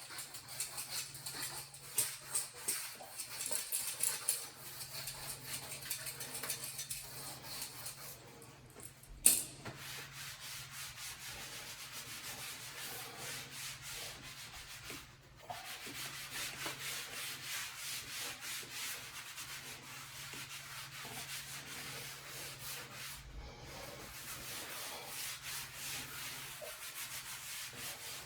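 Abrasive rubbing strokes over a repaired patch in a vinyl sheet floor, a continuous run of short scratchy strokes with a sharp click about nine seconds in and two brief pauses later on.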